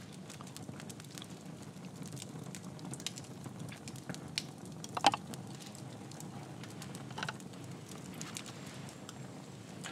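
Campfire crackling, with scattered pops over a steady low rumble. The sharpest click comes about halfway through.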